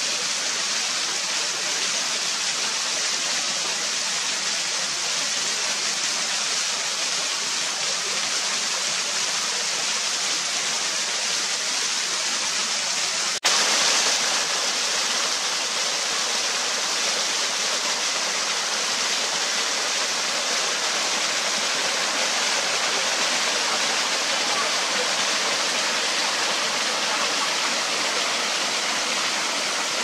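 Small waterfall cascading over rocks: a steady rushing hiss of falling water. It breaks off for an instant about halfway through and comes back slightly louder.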